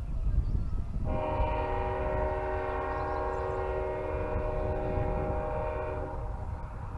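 A train horn sounds one steady, chord-like blast of about five seconds, starting about a second in, over a low rumble.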